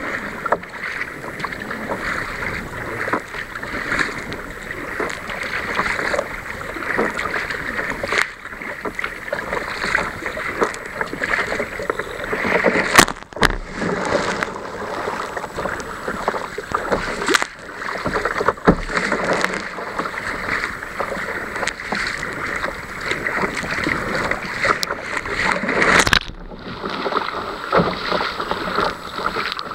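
Choppy sea water rushing and splashing against a sea kayak's bow and deck as it heads into the waves. A wave breaks over the bow about thirteen seconds in, the loudest splash, with a few more sharp splashes later.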